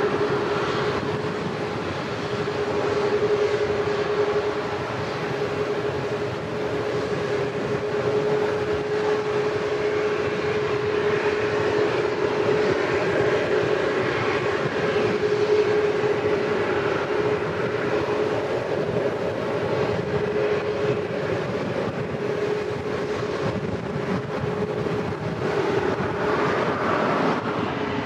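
Passenger jet engines running steadily, a continuous noise with a constant mid-pitched whine held throughout.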